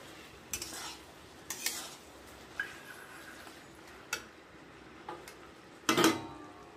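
Metal spatula stirring and scraping chunky vegetables and fish in an aluminium kadai, several short strokes about a second apart. A louder metal clatter near the end as the pan's lid is picked up.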